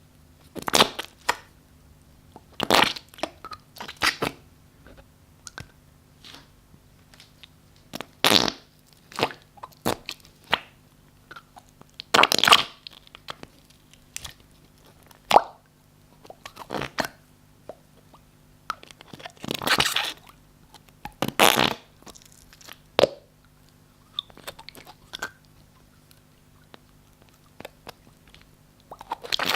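Slime squeezed and pressed by hand, letting out a series of wet squelching, fart-like noises with short pauses between them.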